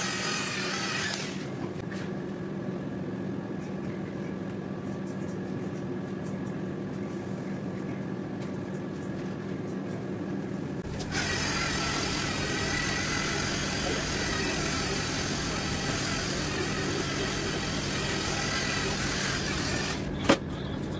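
Handheld electric polisher motor running steadily, a low hum with a higher whine above it. The sound changes abruptly about a second in and again about halfway through. A single sharp knock comes near the end.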